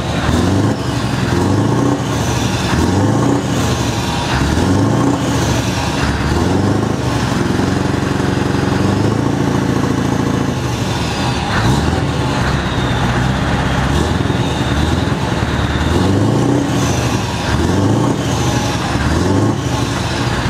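Scania V8 diesel truck engine being revved again and again, its deep note climbing in pitch with each rev and held steady at high revs for a few seconds about halfway through.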